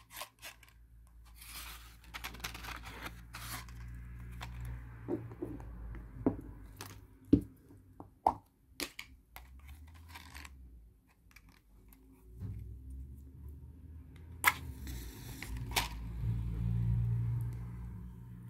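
Glass jar candle being handled on a wooden desk: small knocks, clicks and scrapes as its lid comes off and the jar is set down on a cork coaster. A match is struck near the end, with two sharp scrapes and a brief hiss as it flares.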